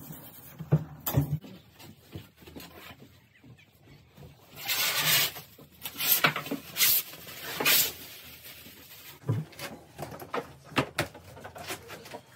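Hand work fitting lining panels around a new PVC window: scattered knocks and taps, with several short scraping, rustling noises around the middle.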